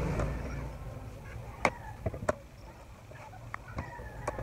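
Kitchen knife slicing a ripe papaya on a cutting board, with about six sharp knocks as the blade cuts through and strikes the board, the loudest under two seconds in.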